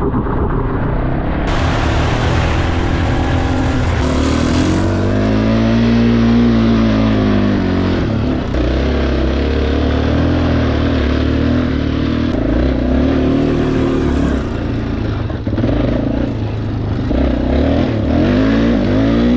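Yamaha Warrior 350 ATV's single-cylinder four-stroke engine being ridden off-road, revving up and easing off again and again, its pitch rising and falling in several swells, the biggest about six seconds in and another near the end.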